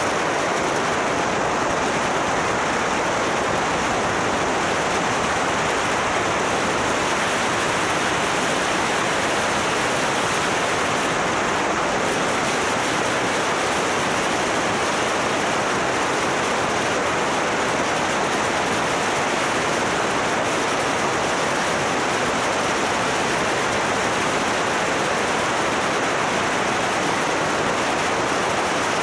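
Steady rush of wind over the microphone of a camera mounted on a moving motorcycle, an even roar with no distinct engine note.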